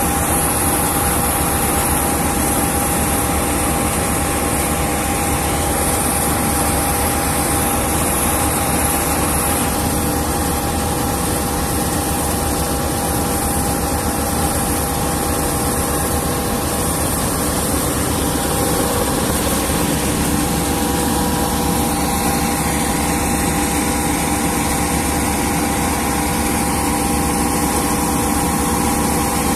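FMWorld rice combine harvester running steadily while its unloading auger discharges threshed paddy into a trailer. The engine and machinery make a constant drone with a couple of fixed whining tones.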